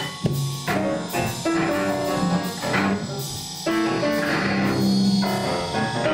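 Free-improvised ensemble music: irregular piano note clusters struck over held bowed cello tones, with drum kit and cymbals joining in.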